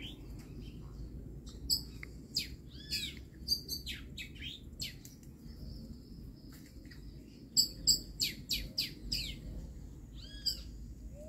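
Yellow-chevroned parakeets giving short, shrill chirping calls, scattered through and bunched in a quick run about two-thirds of the way in, over a low steady background rumble.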